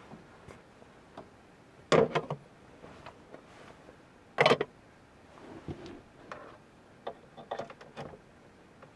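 Two sharp clatters about two and a half seconds apart, the second as a glass lid is set down onto a small electric cooking pot, followed by a run of lighter clicks and knocks.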